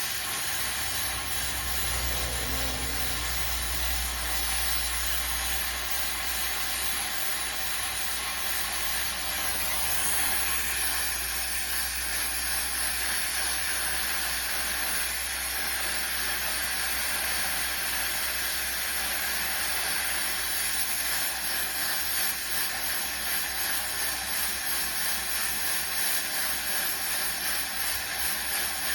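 Handheld gas torch flame hissing steadily as it heats a rusted, seized ball joint nut to free it.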